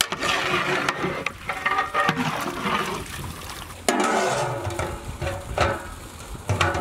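Water and mutton pieces sloshing and gurgling in a large aluminium cooking pot, in irregular surges, as the pot's metal lid is lifted and set back on to cover the meat for boiling.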